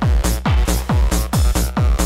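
Fast hard house/techno dance music with a pounding four-on-the-floor kick drum, each hit dropping in pitch, and hi-hats between the beats.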